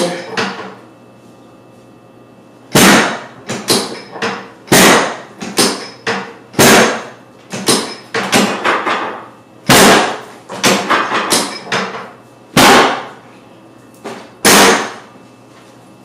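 Chiropractic drop table's lumbar drop section slamming down again and again during drop adjustments of the lower back: about six loud clacks roughly two seconds apart, with smaller clacks between, starting about three seconds in and stopping about a second before the end.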